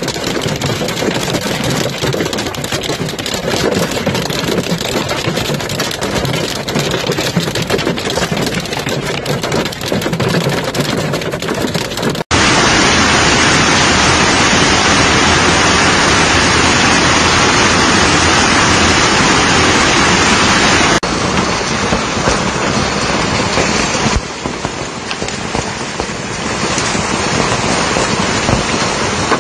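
Heavy hail and rain pelting the ground and surfaces: a loud, dense hiss of countless impacts. About twelve seconds in it jumps abruptly to a louder, brighter hiss, and it shifts twice more later on.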